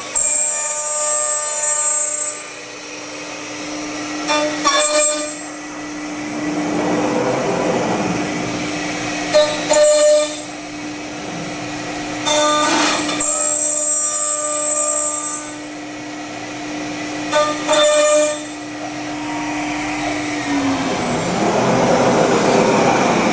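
Tekna TK446 CNC machining centre machining an aluminium profile: a steady spindle hum with five or so louder passes of the cutter biting into the metal, each a bright, high-pitched cutting noise lasting one to three seconds. The hum dips slightly in pitch and fades near the end.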